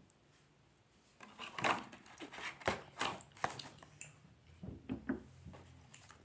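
Pokémon trading cards being handled and flipped through: an irregular run of light rustles and taps.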